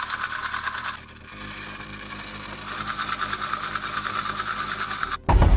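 Small electric motor and plastic gearbox of a solar-powered toy bulldozer running with a fast, rasping whir. It fades about a second in and picks up again a second or so later. Music comes in just before the end.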